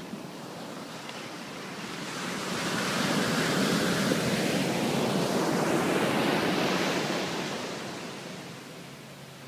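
Ocean surf: a wave breaks and washes up the sand. The rush swells about two seconds in, holds loudest for several seconds, then fades away near the end.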